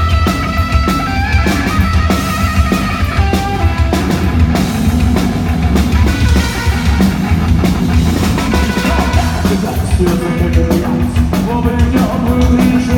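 Live punk rock band playing a fast song at full volume: distorted electric guitar, bass and a pounding drum kit.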